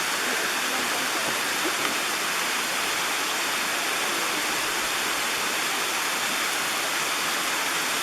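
Steady, even rush of falling water from Tom Branch Falls, a waterfall spilling into Deep Creek.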